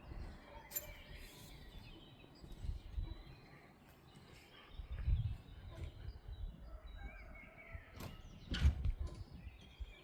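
Quiet outdoor railway-station ambience: faint bird chirps over an uneven low rumble, with a couple of sharp knocks near the end.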